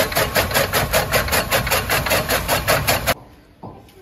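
Powered chaff cutter (toka) with a large flywheel running while green fodder is fed in, chopping in a fast, even rhythm of about five strokes a second. It cuts off abruptly about three seconds in.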